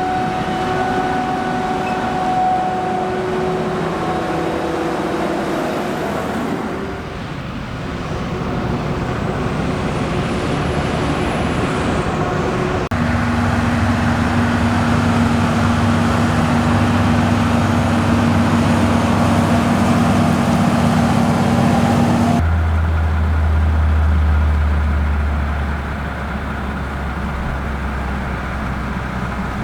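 Heavy farm machinery engines running steadily, the engine sound changing abruptly several times as different machines are heard, with a deep low hum in the last part.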